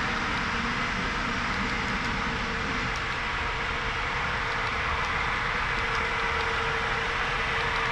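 HO scale model diesel locomotives running on DCC, their LokSound sound decoders playing a steady diesel engine sound through small onboard speakers, with a steady hum running throughout.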